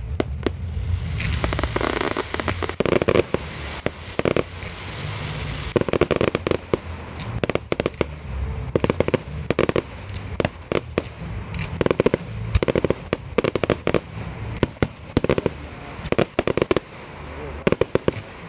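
A fireworks display going off: a rapid, uneven string of sharp bangs, several a second and sometimes in tight clusters, over a steady hiss.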